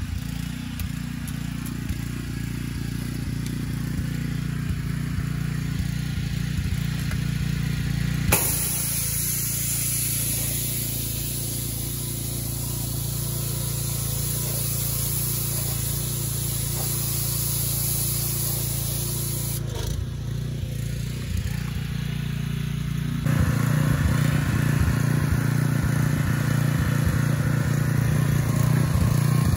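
Pressure washer running with a steady low hum while water hisses from the nozzles of a wheeled undercarriage cleaner spraying the car's underbody and the wet pavement. The sound shifts abruptly a few times and is louder for the last several seconds.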